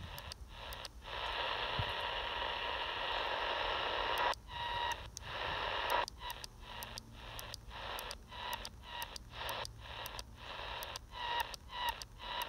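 RadioShack TRC-241 handheld CB radio's speaker putting out AM receiver static on empty channels as the channel is stepped up one at a time. The hiss cuts out briefly with each channel change, several times a second, except for a steadier stretch of about three seconds early on.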